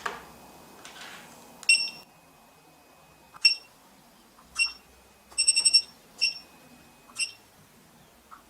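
Short, high electronic beeps from an SINGCALL APE6600 watch receiver as its keys are pressed to register it: single beeps spaced about a second apart, with a quick run of about four beeps a little past the middle.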